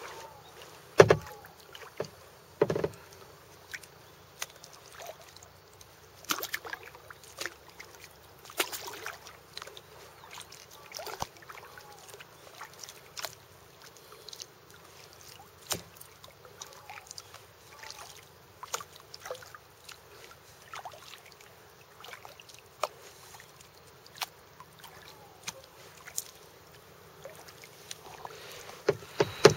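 Kayak paddling on calm lake water: irregular splashes and drips as paddle blades dip in and lift out. The louder splashes come about a second in, again near three seconds, and in a cluster at the end.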